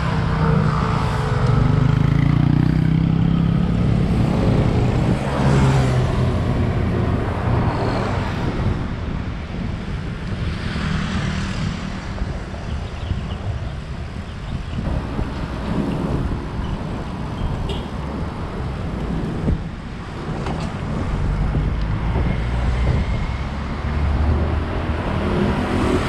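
City street traffic: cars and trucks passing close by, their engine noise swelling in the first few seconds and again near the end, over a continuous low rumble.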